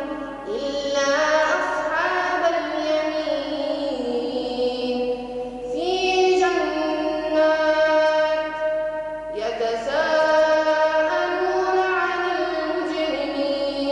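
A boy's voice reciting the Quran in melodic chant, holding long drawn-out notes, with short pauses for breath about six and nine and a half seconds in.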